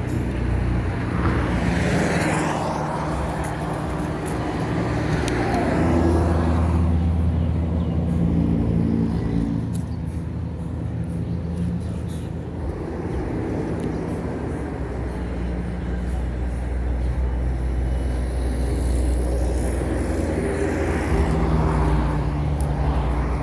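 Road traffic going by: a steady low engine hum, with vehicles passing about two seconds in and again near the end.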